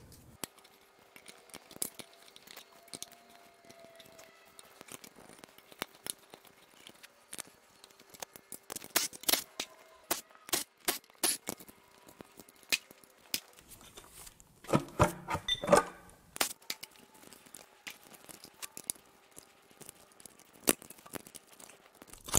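Scattered clicks, snaps and rattles of plastic connectors and clips as a cut wiring harness is unclipped and pulled off a Toyota 2GR-FE V6 engine, with busier handling about nine to eleven seconds in and again around fifteen seconds in. A faint steady hum runs underneath.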